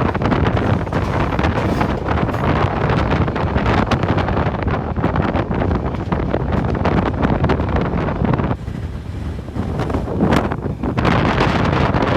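Wind buffeting the microphone through an open train window, over the train's running noise. The gusty rush eases for about two seconds near the end, then returns.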